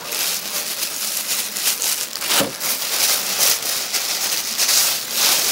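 Plastic shopping bag rustling and crinkling steadily as it is handled and rummaged through, with a quick run of small crackles.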